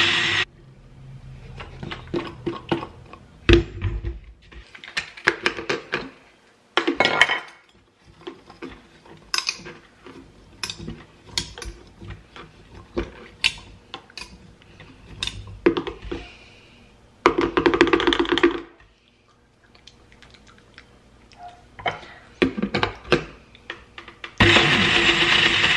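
Countertop jug blender chopping frozen strawberries in short runs. It stops just after the start and is followed by scattered knocks and clicks of the plastic lid and glass jar being handled. A brief burst of the motor comes a little past the middle, and it starts running steadily again near the end, the frozen fruit being slow to puree down.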